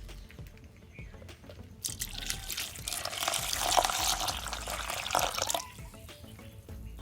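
Water pouring and splashing for about four seconds, starting about two seconds in.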